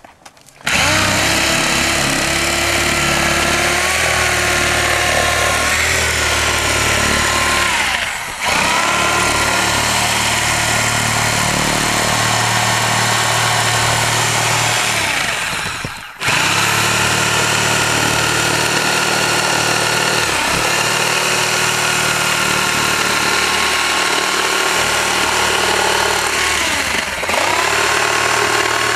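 Corded reciprocating saw cutting a round hole through asphalt roof shingles and the wood decking beneath, its motor whine shifting in pitch as the blade loads and frees. It starts about a second in, dips briefly about a third of the way through, stops and restarts just past halfway, and dips once more near the end.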